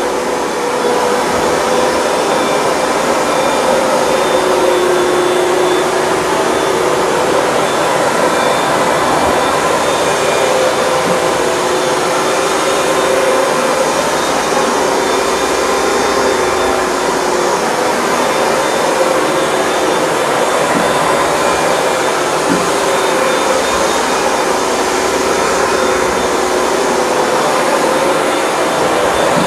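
Hoover Dual Power Max upright carpet cleaner running steadily as it washes a carpet, its suction motor giving a loud, unbroken whine with a few held tones.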